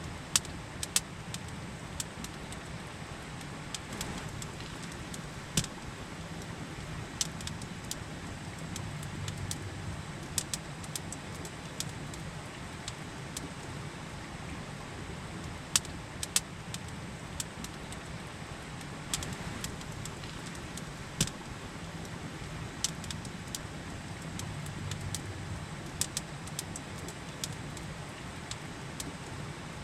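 Campfire crackling, with sharp pops at irregular intervals, over the steady rush of a river.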